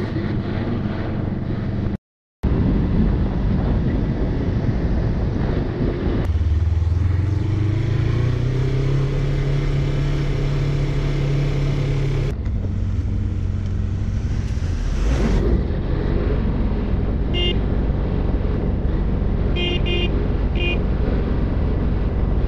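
Suzuki motorcycle engine running under way, heard from the rider's seat with heavy wind noise on the microphone. Partway through, the engine note rises and then holds steady. The sound drops out briefly about two seconds in and changes abruptly a few times at edits, and several short high beeps come near the end.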